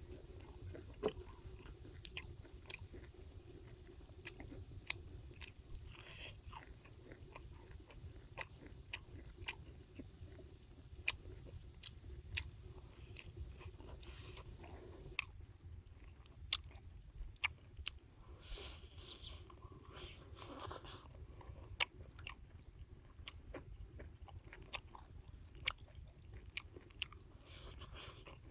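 A person biting and chewing crispy egg-battered fried mushrooms, with many sharp, irregular crunches.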